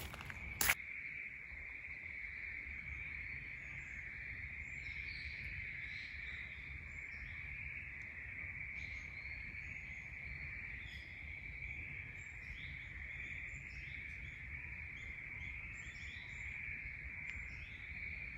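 Insects keep up a steady high drone while many small birds give short, scattered chirps and calls. There is a single sharp click just under a second in.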